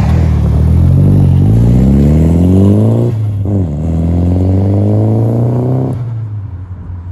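A Nissan 240SX (S13) hatchback's engine accelerating away hard. Its revs climb for about three seconds, drop briefly at a gear change, then climb again through the next gear before the sound fades near the end.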